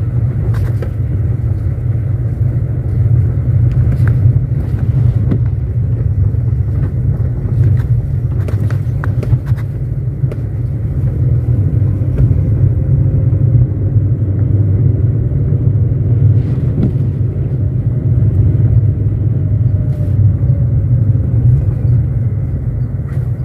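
Car driving on rough, wet gravel and patched asphalt, heard from the car. A steady low road-and-engine rumble runs throughout, with scattered knocks and rattles from bumps. A faint engine note rises and falls about halfway through.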